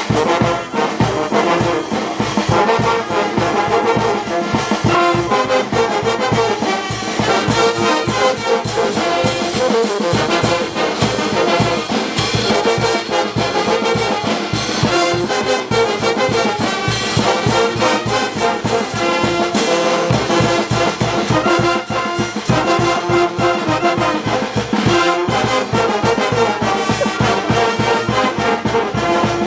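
Large brass band playing live, with trumpets, sousaphones and baritone horns sounding together over a steady drum beat.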